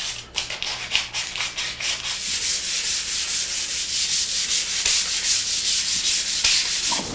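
Hand sanding of a wooden mirror stand with 180-grit garnet sandpaper. The paper rasps along the post in quick back-and-forth strokes with a steady rhythm. This is the final smoothing before the finish goes on.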